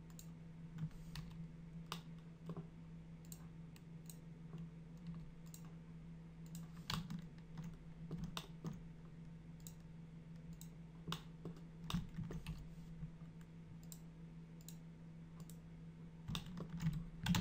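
Irregular, scattered clicks of a computer mouse and keyboard over a steady low hum.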